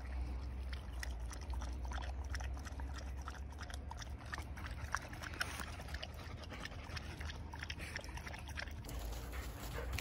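Young husky breathing hard and moving about, worn out from running, with scattered small clicks and rustles.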